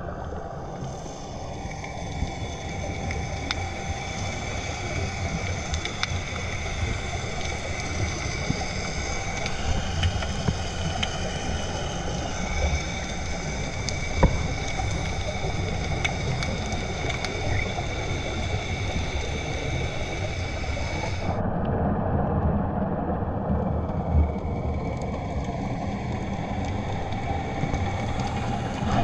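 Underwater ambience picked up by the camera: a low, churning water rumble with scattered faint clicks and one sharper click about halfway through. Over it runs a steady high-pitched whine of several tones, which cuts off suddenly about 21 seconds in and returns fainter near the end.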